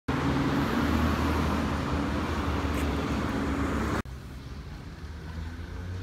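Road traffic with a car's engine running close by, a steady low hum under tyre and road noise. About four seconds in it cuts off suddenly to a much quieter outdoor background.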